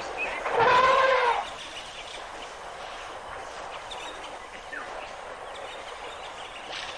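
An elephant trumpets once, a single pitched call about a second long that rises and falls, starting about half a second in. After it only a steady background hiss remains.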